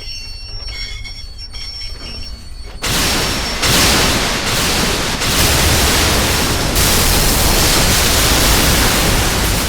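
A few faint high tones, then about three seconds in a loud, steady rushing noise with a deep rumble starts and holds.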